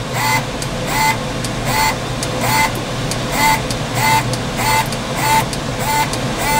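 Electric tape feeder on a Manncorp pick-and-place machine indexing its component tape forward step by step: a short rising whir ending in a brief tone, repeating about every three-quarters of a second.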